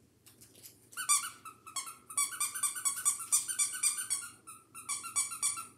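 Brittany puppy whining in quick, high-pitched yips, several a second, starting about a second in with a short break near the end. It is the cry of a puppy wanting to be let out to play.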